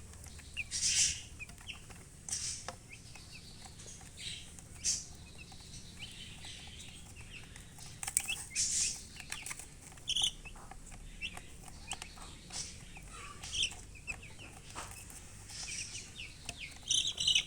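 Baby chicks peeping in many short, high chirps, with a hen clucking now and then and brief scratchy noises in between.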